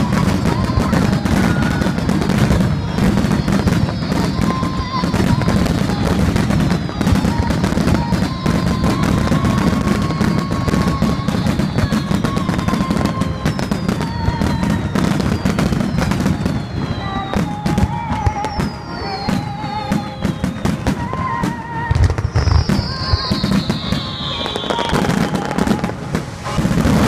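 Fireworks display: aerial shells bursting in a dense run of bangs and crackling, with a heavy low rumble and repeated high whistles falling in pitch. One longer, louder falling whistle comes near the end.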